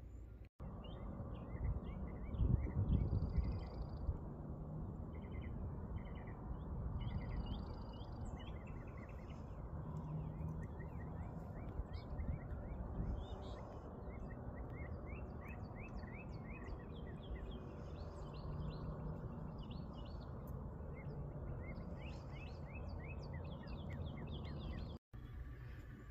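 Small birds chirping in quick, short series, many calls overlapping, over a low rumble of outdoor noise that is strongest about two to four seconds in.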